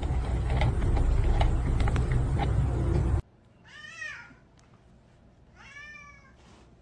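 A cat meowing twice, each meow rising and then falling in pitch. Before the meows, about three seconds of loud rumbling noise with scattered clicks cuts off abruptly.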